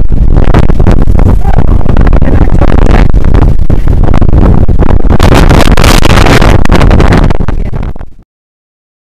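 Strong blizzard wind buffeting the microphone: a loud, steady rumble of wind noise that fades out about eight seconds in.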